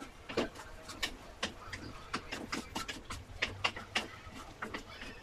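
Wooden spatula scraping and knocking against a metal wok as kangkong and squid are stirred, in irregular strokes a few times a second.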